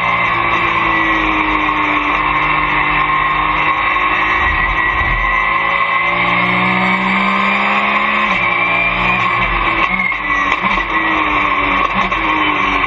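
Porsche race car's flat-six engine at racing speed, heard from inside the cockpit: the engine note climbs under acceleration and drops sharply at gear changes and braking, several times in succession.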